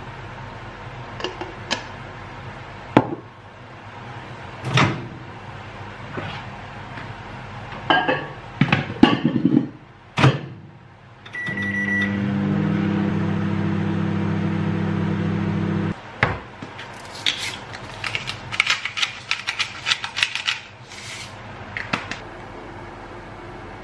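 Kitchen handling noises: clinks and knocks of crockery and utensils. About halfway through, a microwave oven beeps and runs with a steady hum for about four seconds before cutting off. After that comes a quick run of small clicks as a pepper grinder is twisted over the bowl.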